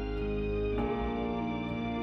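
Background music of sustained chords, moving to a new chord about a second in.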